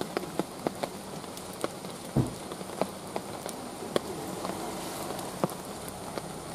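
Rain falling in forest: a steady hiss with scattered sharp ticks of drops hitting leaves, under a thin, steady, high insect drone. A single low thump comes about two seconds in.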